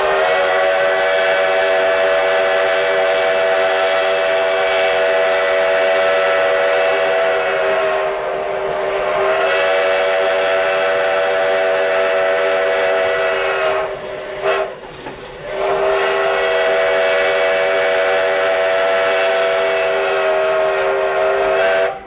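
Steam whistle of Sierra Railway No. 3, a Rogers-built steam locomotive, howling in long blasts with several notes sounding together, heard from the cab. It sags briefly about eight seconds in, then breaks off at about fourteen seconds with a short toot before a last long blast that stops at the end.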